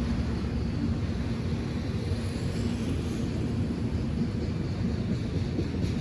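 Train rumbling past: a steady low rumble with a faint steady hum.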